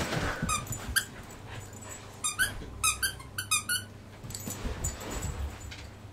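Husky puppy at play, with a quick run of about seven short, high-pitched squeaks a couple of seconds in.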